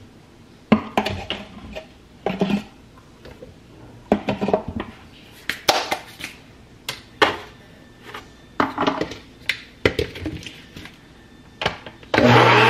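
Plastic blender jar, scoop and containers knocked and set down on a counter in a series of sharp clatters while shake powder goes into the jar. Near the end the blender motor starts abruptly and runs loud and steady.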